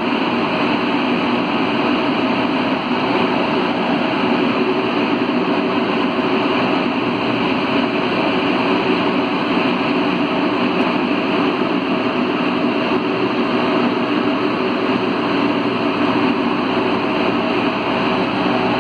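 CAF NS-07 rubber-tyred metro train running at speed through a tunnel, heard from inside the car: a loud, steady running noise that holds without change.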